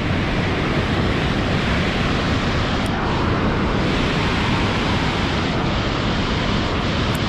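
Steady rush of white water pouring over river falls, a loud, even noise with no rhythm.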